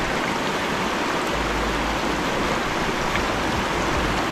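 Rushing creek water, a steady, even wash of noise.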